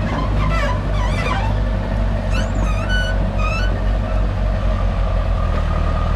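Caterpillar 312C hydraulic excavator's diesel engine running steadily under load with a low, even drone. High wavering squeals ride over it through the first three and a half seconds.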